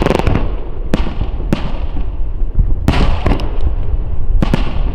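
Starmine fireworks barrage: aerial shells bursting in quick succession, sharp bangs coming singly and in clusters of several over a continuous low rumble of echoing detonations.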